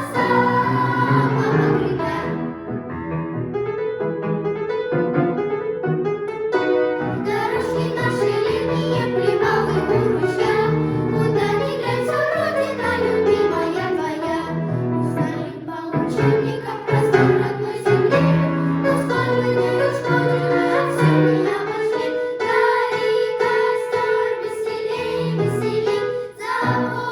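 A children's song sung by young voices over instrumental accompaniment.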